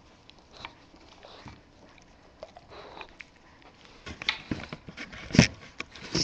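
Bulldog puppy chewing hand-fed dry kibble close to the microphone: faint crunches and mouth clicks at first, then a run of loud, sharp crunches from about four seconds in.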